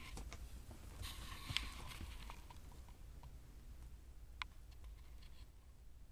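Siamese kittens at play: soft scuffling of paws on a felt carpet, with a few light, sharp clicks and taps, the loudest about a second and a half in and another near four and a half seconds.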